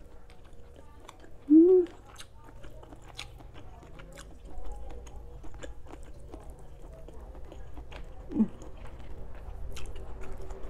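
Close-up chewing of a spicy rice-noodle salad, with many small wet mouth clicks. A short loud "mm" hum of enjoyment comes about a second and a half in, and a fainter one near 8 seconds.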